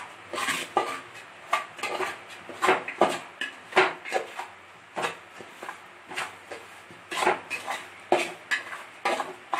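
Metal spoon stirring dry-roasting semolina in a steel pot, scraping through the grains and knocking against the pot's sides in irregular strokes, about one or two a second.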